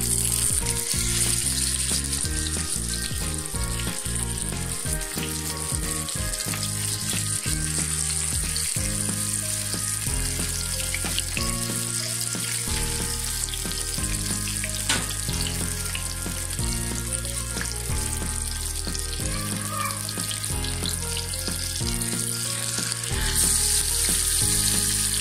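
Marinated pomfret shallow-frying in hot oil: a steady, loud sizzle from the moment the first fish goes in, swelling near the end as the second fish is laid into the oil.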